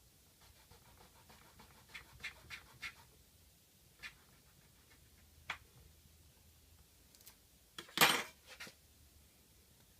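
Scattered small clicks and taps of hand work on small parts, a quick cluster about two to three seconds in and one much louder sharp clack about eight seconds in.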